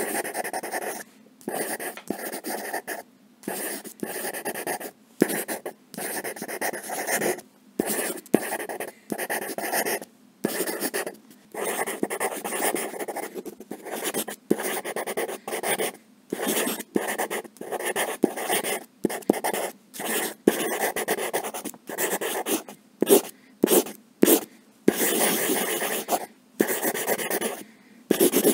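Pencil writing on paper: bursts of scratching strokes, each from a fraction of a second to about a second long, broken by short pauses as the pencil lifts.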